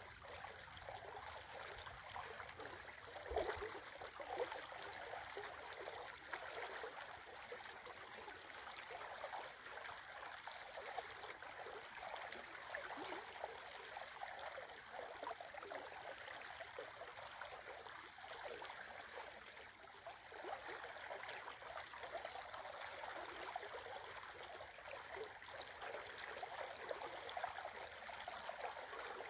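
Shallow river water running steadily over rocks and a small riffle, with one brief louder splash about three seconds in.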